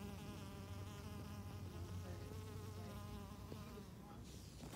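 A bee buzzing in flight: a steady hum whose pitch wavers slightly. It fades near the end, where there is a brief scratchy noise.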